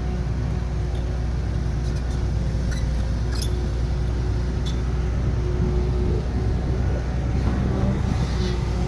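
Heavy construction machinery's diesel engine running steadily under load, with a few short metallic clinks about two to five seconds in.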